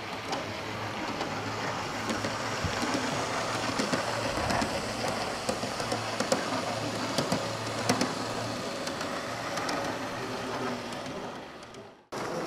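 G-gauge model passenger train rolling along the track: a steady low hum and running rumble, with sharp clicks of the wheels over the rail joints, louder as the cars pass close.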